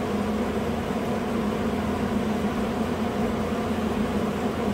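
Steady mechanical hum with a low drone under an even hiss, unchanging throughout.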